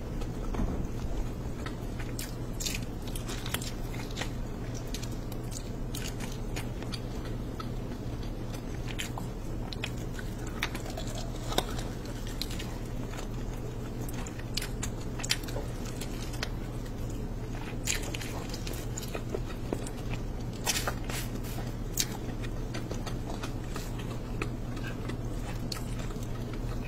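Eating rice and mutton curry by hand: wet chewing and biting with scattered crisp crunches, and the squish of fingers mixing rice into curry, over a steady low hum.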